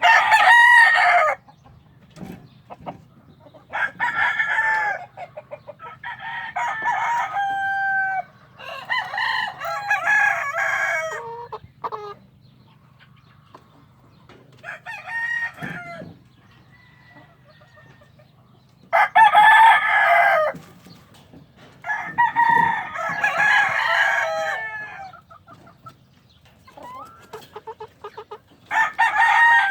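Young gamefowl cockerels, three-month-old Plumber/Roundhead crosses, crowing in turn: about eight crows of a second or two each, spread across the stretch with quiet gaps between.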